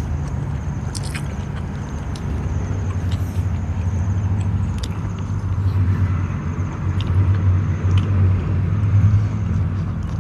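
Mukbang-style eating close to the microphone: scattered sharp mouth clicks and bites as boiled vegetables are chewed, over a steady low rumble that grows louder toward the end.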